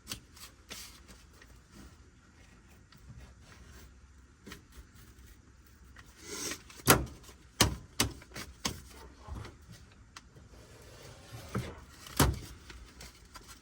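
A cardboard package being opened and handled by hand: scattered sharp clicks and knocks with brief rustling, the loudest cluster in the middle and one more loud knock near the end.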